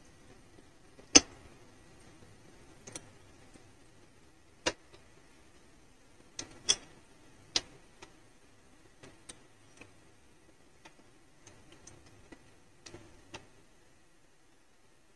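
A kitchen utensil clicking and tapping against cookware as fried rasbhari are lifted out of the oil: a dozen or so irregular sharp clicks, the loudest about a second in, with quieter taps later.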